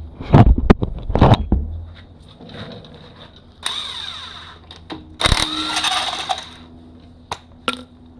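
Impact wrench with a 13/16-inch socket taking the wheel lug nuts off a 4Runner. There are loud metallic clanks in the first second and a half, then two bursts of about a second each from the wrench, and two short clicks near the end.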